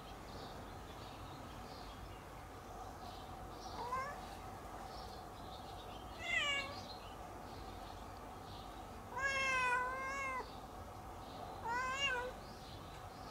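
Domestic cat meowing four times. The third meow is the longest and loudest, drawn out for over a second.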